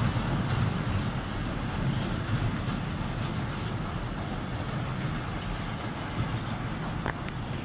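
Passenger train running away over a steel girder railway bridge, its low rumble slowly fading as it recedes.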